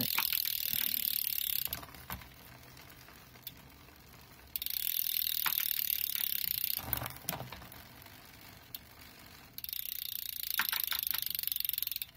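Bicycle rear wheel spinning on the stand, its freehub ratchet clicking so fast that it buzzes, in three runs of about two seconds each, every run cutting off sharply. A few sharp drivetrain clicks fall between the runs.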